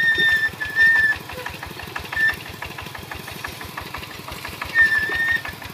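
Single-cylinder diesel engine of a Kubota walk-behind hand tractor running under load, pulling a disc plough through soil, with a steady rapid firing beat. A high thin squeal rises above it in several short spells.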